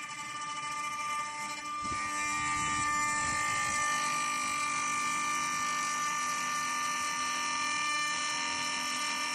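CNC router spindle running at high speed with a steady whine while it carves a wooden cylinder turning on the rotary fourth axis, with a brief lower rumble about two seconds in.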